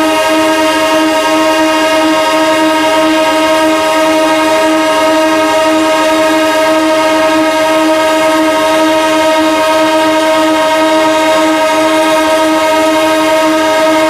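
Locomotive air horn held in one long, unbroken blast, a loud steady tone that does not change in pitch.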